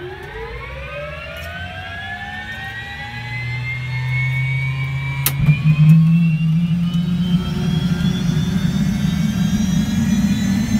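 Bell 206 JetRanger's Allison 250 turboshaft engine starting: a whine rising steadily in pitch as the engine spools up. A sharp click comes about halfway through, after which a deeper rumble builds and the sound grows louder.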